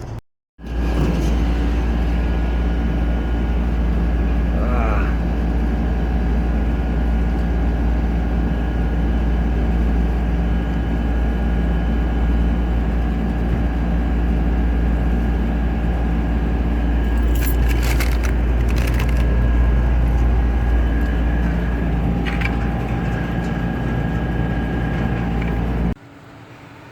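Steady low rumble of a motor vehicle running, with a constant engine hum. It starts abruptly just after a brief gap and cuts off about a second before the end.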